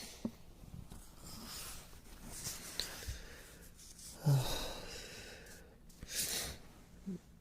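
A man breathing close to the microphone: several slow breaths and sighs. The loudest, about four seconds in, starts with a short low voiced hum.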